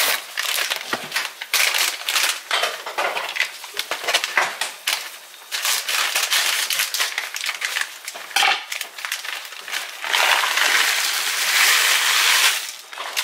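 Plastic bag of dry stuffing mix crinkling and rustling as it is handled. About ten seconds in, the dry bread cubes are poured into a pot of hot water and butter in a steady rush that lasts a few seconds.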